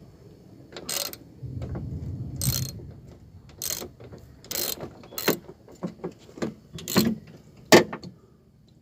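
Irregular sharp metal clicks and clacks of small hand tools working a truck door's lock mechanism loose, with a short low rumble near the start. The loudest click comes near the end.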